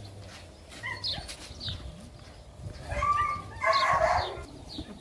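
Dog barking twice, about three and four seconds in, the second bark longer than the first.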